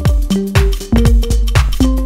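Electronic dance music with a steady kick-drum beat under sustained synth and bass notes.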